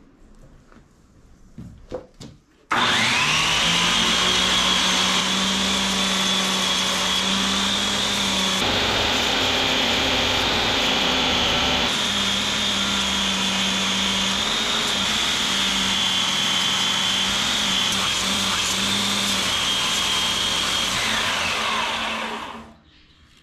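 Belt grinder starting up and running with a steady high whine and a low hum while its abrasive belt grinds a steel spear head made from car spring steel; near the end it is switched off and the whine falls away as it winds down.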